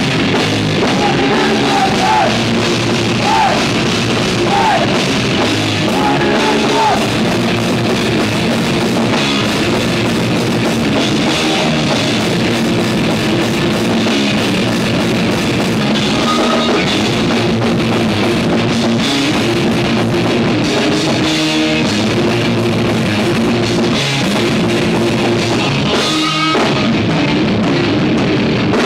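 Live thrash metal band playing at full volume: distorted electric guitars, bass and a drum kit driving a fast riff. Repeated bending high notes ride over the riff in the first several seconds.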